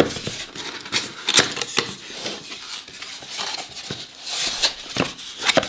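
A cardboard shipping box being opened by hand: flaps bending and scraping, with paper packing rustling and a string of sharp taps and clicks.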